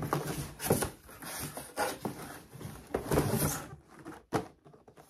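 Cardboard shipping box being lifted and handled, with irregular scraping and rustling noises and a few knocks. The noise is loudest near the start and again about three seconds in, then dies down near the end.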